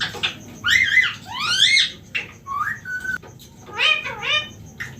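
Rose-ringed (Indian ringneck) parakeet giving a string of short whistled calls and squawks, several sliding up in pitch.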